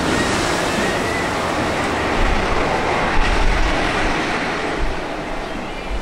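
Wind rushing over the microphone: a steady noise, with low rumbling gusts from about two seconds in and again near the end.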